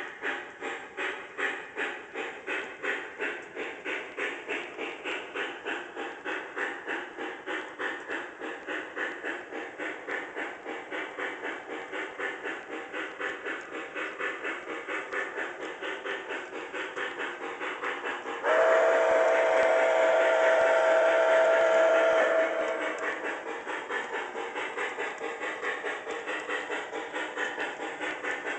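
Digital sound system of an MTH HO-scale Pere Marquette 1225 2-8-4 Berkshire steam locomotive model playing a steady steam chuff, a few chuffs a second. About two-thirds of the way through, the chuffing gives way to a louder steam whistle chord held for about four seconds, then the chuff returns.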